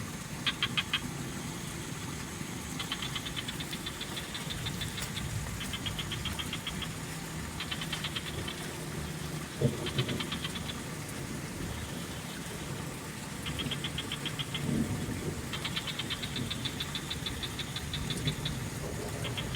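Frogs calling: rapid rattling trills, each about a second long, repeating every few seconds over a steady low background.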